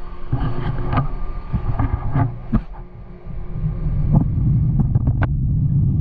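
Machine-shop sounds: a low mechanical hum with several sharp metallic clicks and knocks, then a machine running steadily and more loudly from about four seconds in.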